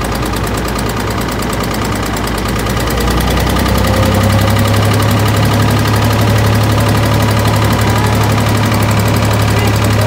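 The engine of a boat's powered capstan winch runs steadily as rope is hauled around the drum. It gets louder about three to four seconds in and holds at that level.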